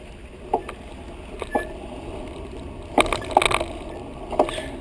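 Bicycle gear shifter clicking as the rider shifts down through the gears, a single click about once a second, with a quick cluster of rattling clicks about three seconds in, over a low rumble.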